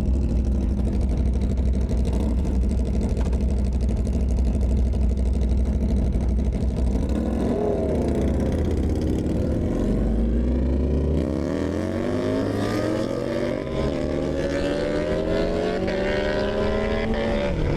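Motorcycle engine under way, at first running steadily under a low wind rumble. About halfway through its pitch climbs steadily as it accelerates, then drops sharply near the end, as at an upshift.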